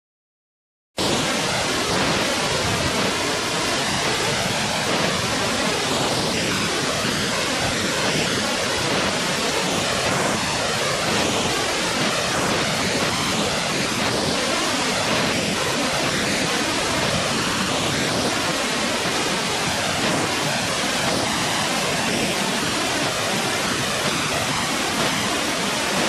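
Waterfall rushing: a steady, even hiss of falling water that starts suddenly about a second in.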